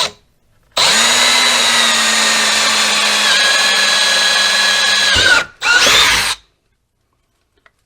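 Power drill boring a quarter-inch hole through plastic pipe: a steady motor whine for about four and a half seconds that dips slightly in pitch partway as the bit cuts, then stops, followed by a brief second spin-up that rises in pitch.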